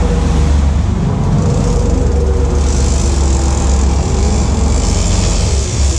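Sportfishing boat's engines running under way with a steady low rumble, over the hiss of wake and wind; the rushing hiss grows louder about two and a half seconds in.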